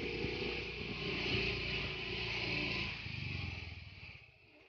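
A motorcycle engine running steadily at low speed, dying away near the end.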